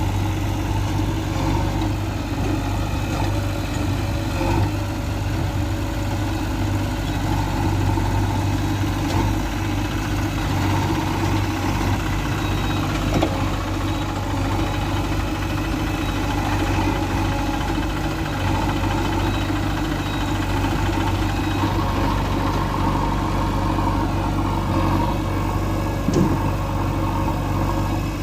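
Diesel engine of the backhoe or a tractor idling steadily, with a low even hum. A couple of faint knocks come about halfway and near the end.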